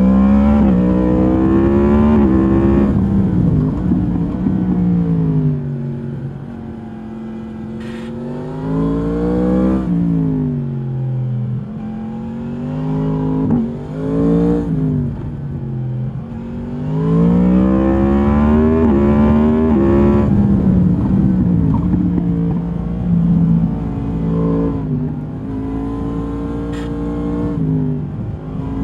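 2022 Yamaha MT-10's crossplane inline-four through its stock exhaust, heard from the rider's seat while riding. The revs climb and drop several times as the bike accelerates and slows, then hold fairly steady for a while in the later part.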